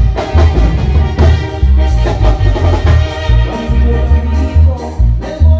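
Live band playing an upbeat instrumental dance tune, loud: a drum kit keeps a steady beat under deep pulsing bass notes and sustained melody notes, with no singing.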